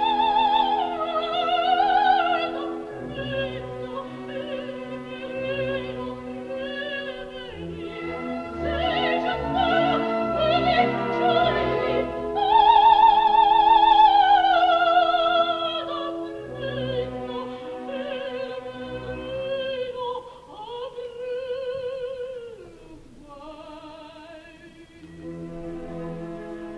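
Operatic soprano singing with a wide vibrato over an orchestra, swelling to loud sustained high notes. Near the end the voice sinks lower and softer.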